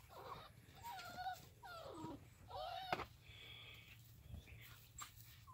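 Puppies yipping and whining while they play, tussling over a toy: several short cries that bend up and down in pitch, mostly in the first three seconds.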